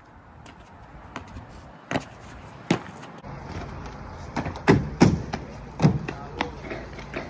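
Trainers landing and hands slapping on walls, paving and a wooden deck as a parkour runner jumps and vaults: a string of sharp thuds and slaps, the loudest few about five seconds in.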